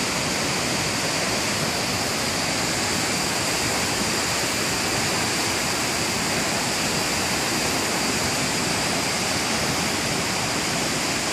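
Goro-ga-taki waterfall: water falling and rushing steadily in an even, unbroken hiss.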